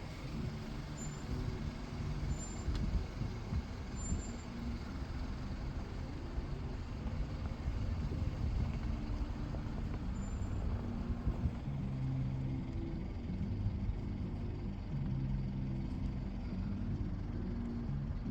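Steady low rumble of a running motor vehicle, its pitch shifting now and then.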